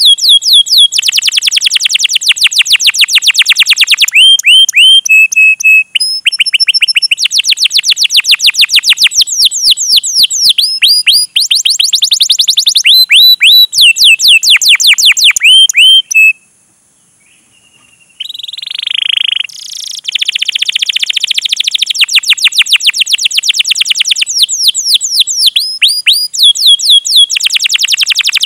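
Domestic canary singing long, fast trills of sharp, down-slurred 'cuit' notes, many to the second, in rolling phrases. The song stops briefly about two-thirds of the way through, then picks up with a buzzier phrase and more trills.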